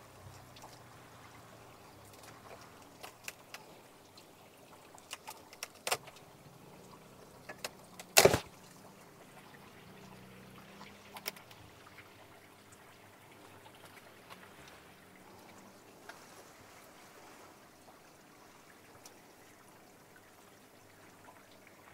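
Water trickling in a plastic hydroponic tower while hands work among the sweet potato vines and roots at its base, with scattered small clicks and one sharp knock about eight seconds in.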